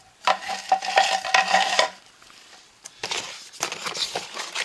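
Firework tubes and their packaging being handled: rustling and clattering of plastic-wrapped tubes and cardboard in two bouts, the first ending about two seconds in and the second starting about a second later.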